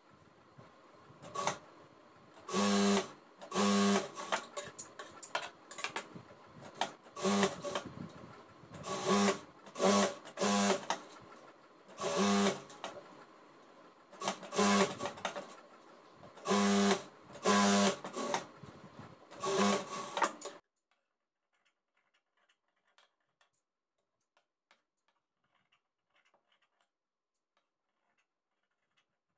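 JACK industrial sewing machine stitching in about a dozen short bursts, each under a second to about a second long with brief pauses between, as fabric is fed under the needle. It stops abruptly about two-thirds of the way through, leaving only faint scattered clicks.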